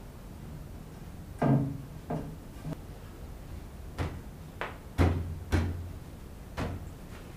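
A series of about eight irregular knocks and thuds of wood on wood, the loudest about five seconds in.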